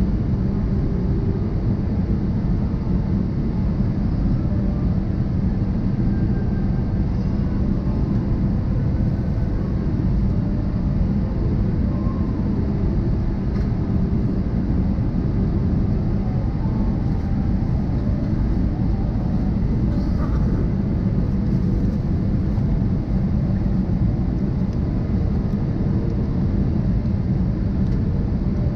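Steady low rushing noise of a jet airliner's engines and airflow, heard inside the cabin during the descent toward landing.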